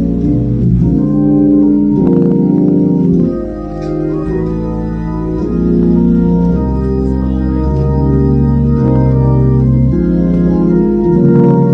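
Two-manual Hammond-style console organ playing a slow passage of held chords over a bass line, with the melody on top; the chords change about every second. It drops quieter for a moment about three and a half seconds in.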